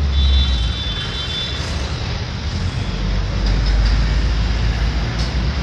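Busy road traffic noise with a heavy, uneven low rumble.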